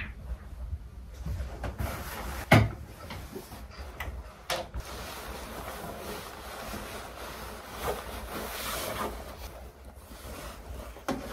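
Wardrobe doors knocking and clicking, the loudest knock about two and a half seconds in and another about four and a half seconds in, followed by the rustling of a padded coat being put on.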